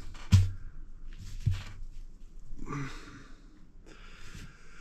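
Two sharp knocks about a second apart as a PCP air rifle is handled on the bench, followed by a few heavy, breathy exhales.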